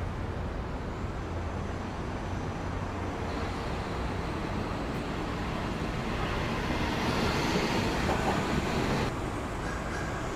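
Steady city traffic rumble. About six seconds in it gives way to louder railway-station noise with a train moving, which cuts off suddenly near the end.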